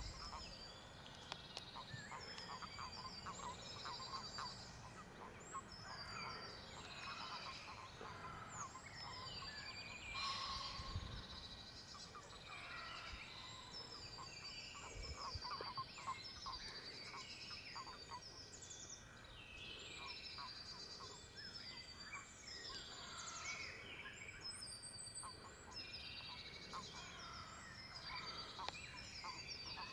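Chorus of frogs calling, many overlapping calls at once, with short high notes repeating over them throughout.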